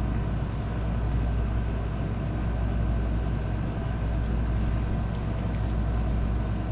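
Steady low background hum with an even hiss over it, unchanging throughout, and a few faint ticks near the end.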